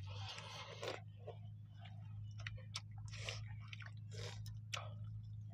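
Close-up chewing of rice with dal and saag being eaten by hand, with scattered soft clicks and wet mouth smacks over a steady low hum.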